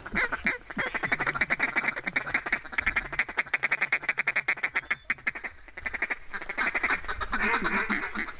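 Duck feeding chatter: a fast run of short clucking quacks, several a second, with a few louder, drawn-out quacks near the end.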